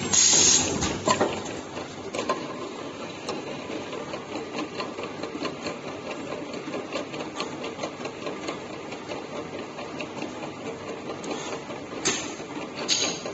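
Automatic jar taping machine and its conveyor running with a fast, steady mechanical ticking. Brief louder noisy bursts come in the first second and twice near the end.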